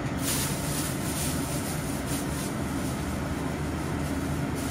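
Steady hiss over a low hum from a frying pan of chicken drumsticks in soy-sauce liquid, heating on an induction hob as it comes up to a simmer.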